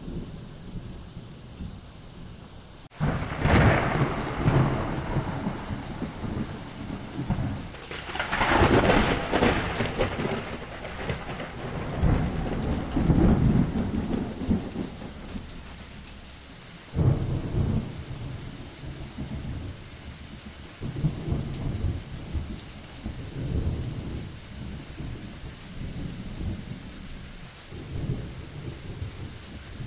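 Thunderstorm: steady rain with rolling thunder. A sudden loud thunderclap comes about three seconds in, heavy rumbles follow, another sharp clap comes a few seconds past the middle, and softer rolls trail off after it.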